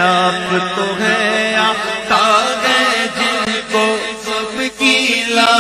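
Male voices singing an Urdu naat, a devotional song in praise of the Prophet, drawing out a line in long, wavering held notes.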